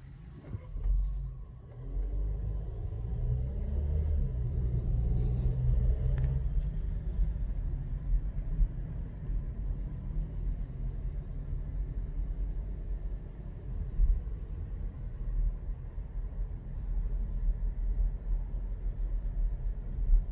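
Volkswagen T-Cross running and tyres rolling, heard as a low rumble inside the cabin as the car drives at city speed. The rumble builds about two seconds in as the car picks up speed, with a few light clicks of handling just before.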